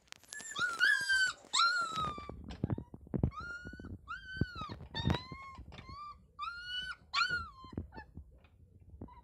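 Young puppies whining: a string of about ten high, arching whines, each about half a second long, with a few soft knocks and scuffles between them.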